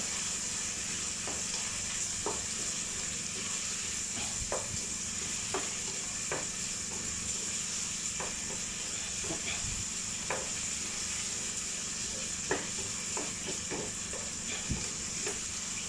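Sliced onions and garlic sizzling steadily as they sauté in oil in a metal pan, the first stage of a ginisa, with a wooden spoon stirring and scraping against the pan in short, irregular strokes about once a second. A low steady hum runs underneath.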